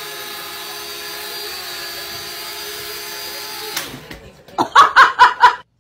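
Small toy quadcopter drone hovering, its motors giving a steady buzzing whine that drops away just before four seconds in. About five loud, short, pitched cries follow in quick succession near the end.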